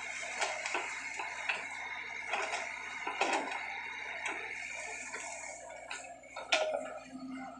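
Sany SY55C mini excavator working its bucket in wet peat: a steady running hum under irregular clicks and knocks, the loudest knock about six and a half seconds in.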